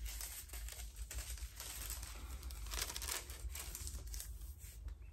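Thin Bible pages rustling and crinkling as they are turned, in several soft swishes.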